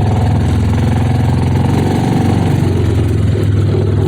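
Side-by-side UTV engine running steadily, with its pitch shifting slightly about halfway through.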